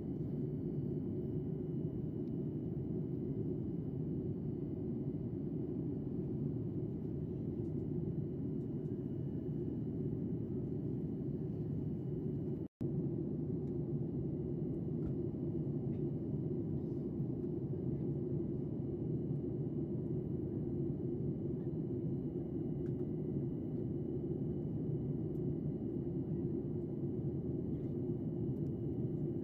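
Steady jet airliner cabin noise: the low, even rush of engines and airflow heard from a window seat, with a faint steady high tone above it. It cuts out for a split second about halfway through.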